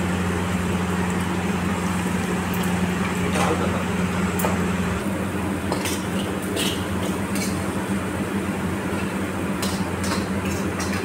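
Metal ladle and tongs clinking and scraping against a steel wok as stir-fried noodles are tossed, then tipped into a bowl near the end. Scattered sharp clinks sit over a steady low hum.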